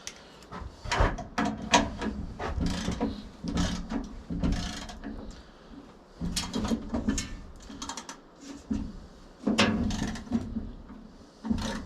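Torque wrench ratcheting on the sawmill's band-blade tensioning bolt, tightening the new blade in several strokes of rapid clicking.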